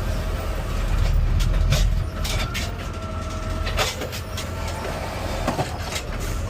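Garbage truck's diesel engine running, heard from inside the cab, with scattered knocks and rattles; the engine's low hum swells for about a second near the start.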